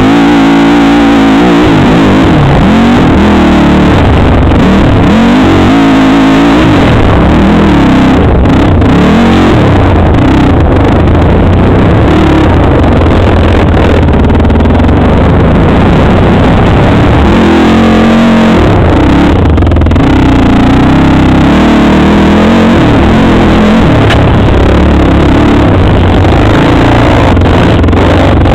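Suzuki QuadSport Z400 ATV's single-cylinder four-stroke engine revving up and down over and over while riding a gravel trail. It is heard from a helmet camera, very loud and distorted.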